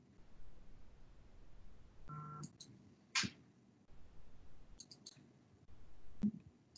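Faint, scattered computer clicks: about half a dozen single clicks, the sharpest about three seconds in, as a computer is operated. A brief tone sounds about two seconds in.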